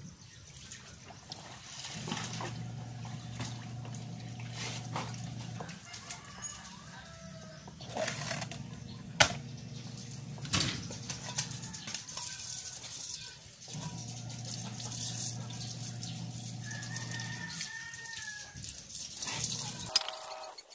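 Pots and pans rinsed in a plastic basin under a running hose, water splashing, with a few sharp metal clanks. Chickens cluck nearby, and a low steady hum comes and goes twice.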